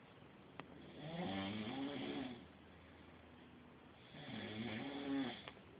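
A sleeper snoring: two long snores about three seconds apart, each a drawn-out pitched drone that wavers up and down, with quiet gaps between them.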